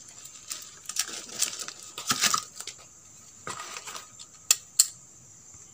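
Plastic bubble-wrap bag crinkling and rustling as stacked circular printed circuit boards are handled and slid out of it, with a few sharp clicks of the boards about three and a half to five seconds in.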